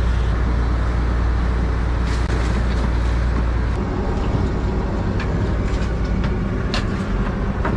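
Fishing boat's engine running with a steady low drone that turns rougher and uneven a little after halfway, with a few sharp knocks near the end.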